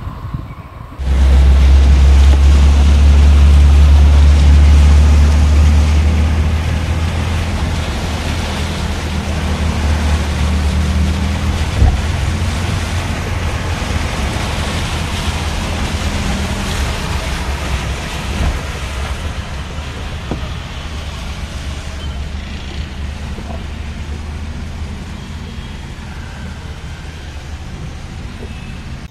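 Sound inside a car driving through floodwater on a road: a loud, low rumble under a steady rushing wash of water and road noise. It starts suddenly about a second in, is loudest for the first few seconds, then slowly eases.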